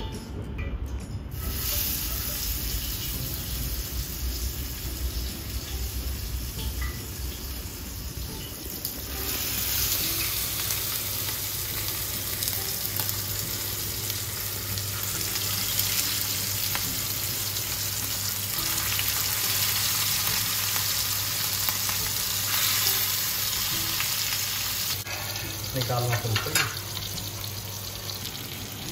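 Marinated mutton chops sizzling as they fry on a hot iron tawa. The sizzle starts about a second in as the first chops go onto the pan, and grows louder about nine seconds in as more chops are laid down.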